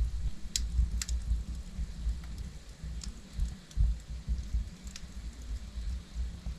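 Wood logs burning in a fireplace: scattered sharp crackles and pops, the strongest about half a second and a second in, over an uneven low rumble of the flames.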